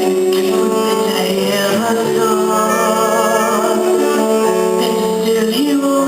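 Voices singing a musical-theatre song over instrumental accompaniment, with long held notes.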